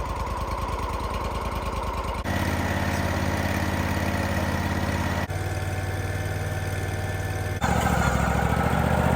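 Portable sawmill's engine running steadily, jumping abruptly to a different steady pitch three times, about two, five and seven and a half seconds in.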